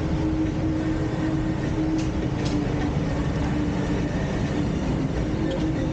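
Petrol station fuel dispenser pumping petrol through the nozzle into a motorcycle's tank: a steady low rumble with an even hum, and a couple of light clicks about two seconds in.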